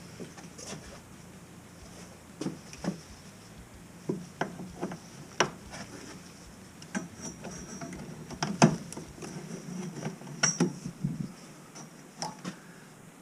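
About a dozen irregular hammer knocks on wood framing, knocking down something sharp so it can't cut. The loudest blow comes a little past halfway.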